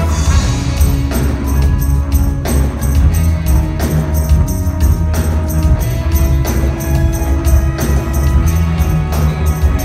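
Live orchestra of violins, tuba and brass with a drum kit and congas playing a steady-beat arrangement, with heavy bass and percussion ticking about four times a second.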